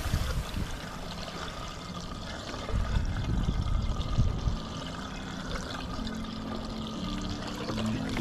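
Small waves lapping and splashing against a kayak hull, with a low rumble that swells about three seconds in.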